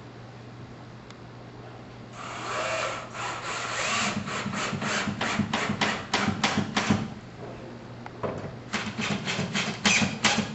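Power drill driving drywall screws through a drywall patch into a wooden stud, in two runs with a pause between, with rapid clicking.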